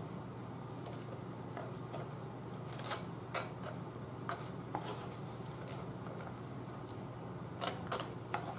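Plastic fork picking, scraping and tapping in a styrofoam takeout container: scattered short clicks and scrapes, a few at a time, over a steady low hum.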